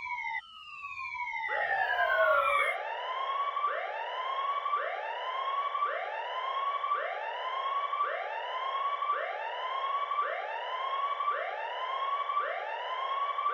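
Siren-like sound effect, with falling pitch glides in the first couple of seconds, then a quickly rising whoop repeated about every 0.7 seconds.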